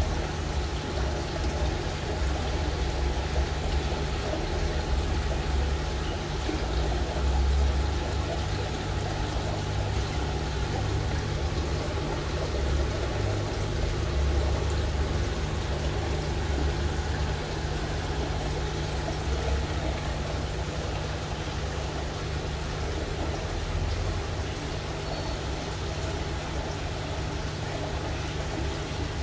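Steady low hum with an even rushing noise over it, from the aquarium's air pump and water circulation running continuously.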